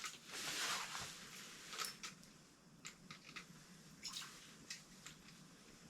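Faint splashing and dripping water with scattered small clicks and knocks, as a small walleye is pulled up through a hole in the ice.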